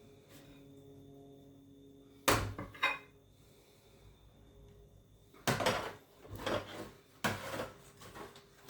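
Kitchen clatter of dishes and utensils: two sharp knocks a couple of seconds in, then a run of clattering knocks in the second half.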